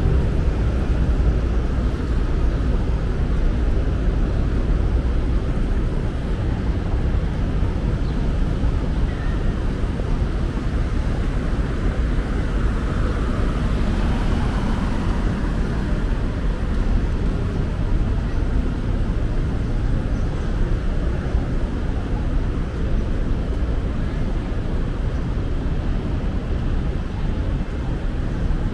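Steady low rumble of harbourside outdoor ambience: distant engine noise and wind on the microphone, with no single event standing out.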